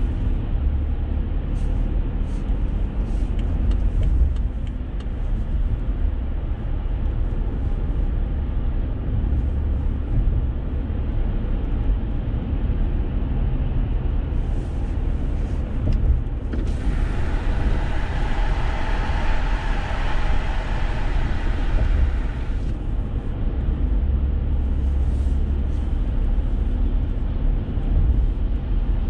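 Road noise inside a moving car: a steady low rumble of tyres and engine. A brighter hiss comes in sharply a little past halfway and stops just as sharply about six seconds later.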